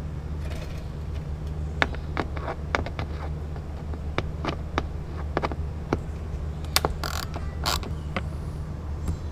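Allen key turning out a Torx screw in a car door panel: a run of sharp metal clicks as the key is worked and reset in the screw head, with two short scrapes near the end, over a steady low hum.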